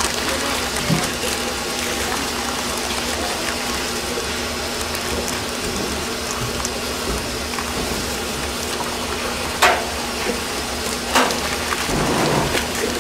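Steady rain-like hiss with a steady hum under it, and plastic cling film crackling sharply twice near the end as it is pulled back off a tub of glutinous rice doughnut dough.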